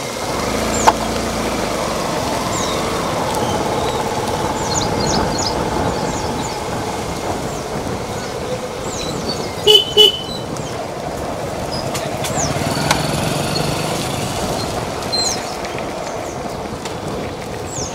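Scooter and motorcycle engines running steadily as a small convoy rides slowly along a lane, with two short horn toots a little before the middle.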